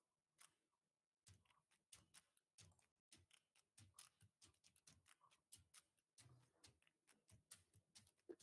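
Near silence with faint, irregular clicks and ticks.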